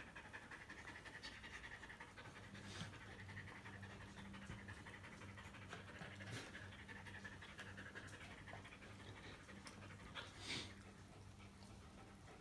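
A dog panting quickly and faintly over a low, steady hum, with a few soft clicks.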